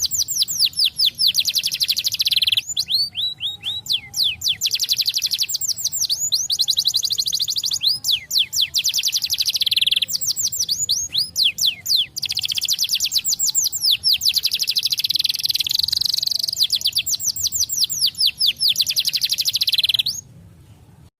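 Domestic canary singing: long, rapid trills of quickly repeated high notes, phrase after phrase with short breaks, stopping shortly before the end.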